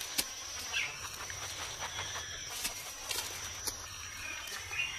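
Faint rustling and light crackling of dry leaf litter as an African civet moves and sniffs through it, over a thin, steady, high-pitched insect drone.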